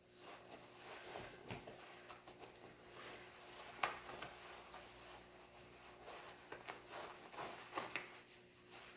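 Faint cloth rustling as a jiu-jitsu belt is wrapped and knotted around a gi jacket, with one sharp click about four seconds in.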